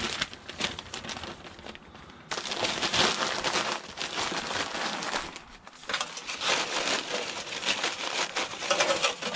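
Sheets of newspaper being crumpled and wadded up by hand as kindling to light charcoal: a dense crackling rustle in two long stretches with a short pause between them.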